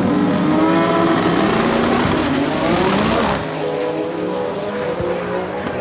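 Drag racing cars launching from the start line and accelerating hard, engine pitch climbing, with a high whine rising over the first two seconds. The sound drops off sharply a little over three seconds in.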